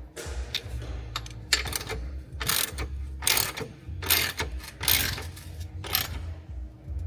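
Ratchet wrench with a 21mm socket clicking in repeated short strokes, about one a second, as the new control-arm bolts are snugged up ahead of final torquing. A low steady hum runs underneath.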